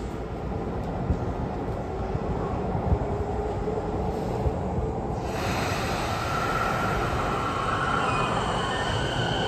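Electric commuter train standing at an underground platform with a steady low rumble; about halfway through, the high whine of its electric traction motors switches on and builds as the train starts to pull out.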